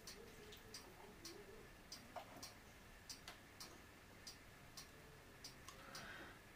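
Near silence with faint, sharp ticking about twice a second, like a clock in the room; the paint pour itself makes no heard sound.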